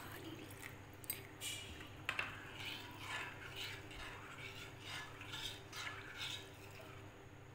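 Metal spoon stirring thick mango pulp and water in a glass bowl, scraping and clinking against the glass in repeated strokes about two a second.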